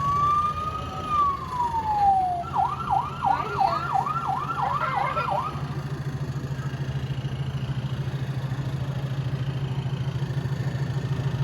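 Electronic fire-engine siren sound effect from a coin-operated kiddie fire truck ride: one wail that rises and then falls, then a fast warbling yelp of about three cycles a second that stops about five seconds in. A steady low hum runs underneath.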